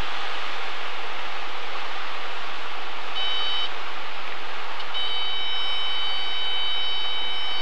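Steady rush of a light airplane's engine and airflow heard through the headset intercom. A high steady warning tone, the stall warning horn, sounds briefly about three seconds in and then holds from about five seconds in, as the plane flares and settles onto the runway.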